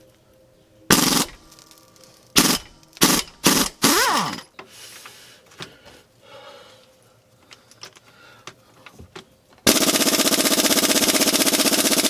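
Aging Ingersoll Rand air impact gun: several short bursts, the last winding down in pitch. Then, from nearly ten seconds in, a loud steady rapid hammering on a subframe nut that won't come loose, with the air pressure getting close to the compressor's 90 psi lower end.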